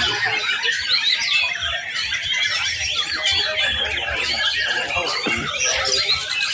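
Many white-rumped shamas singing at once, a dense, unbroken run of quick sweeping whistles and chirps that overlap one another.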